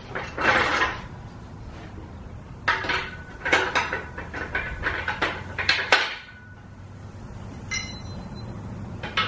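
Steel yoke parts and bolts clanking and clinking as the frame's bolt holes are lined up and bolted: sharp metallic knocks with short ringing. One group comes near the start, a quick run of knocks follows from about three to six seconds in, and a single ringing clink comes near the end.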